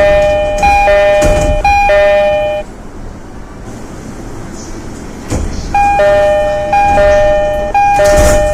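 E233 series train door chime: a two-note high-then-low chime sounded three times in a row, heard twice, with a second run starting about five seconds in. Short bursts of noise from the doors moving fall between the notes.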